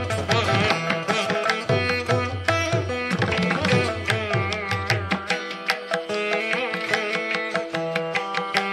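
Background music: a Carnatic piece played on the veena, with a steady run of plucked notes.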